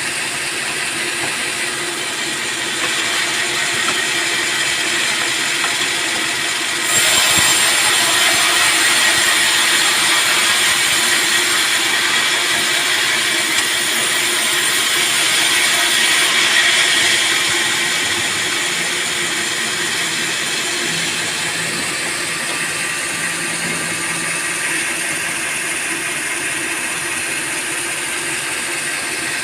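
Band sawmill running steadily, growing suddenly louder and hissier about seven seconds in as the blade cuts into a teak log, then easing back after about ten seconds.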